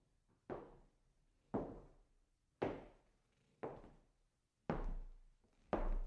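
Slow footsteps on a wooden floor, heard from a distance: about one step a second, each a hollow knock with a short echo. The last two steps are louder and heavier.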